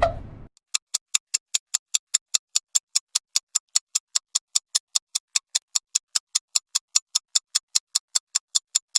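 Quiz countdown timer sound effect: rapid, even ticks, about five a second, following a short whoosh that fades out in the first half second.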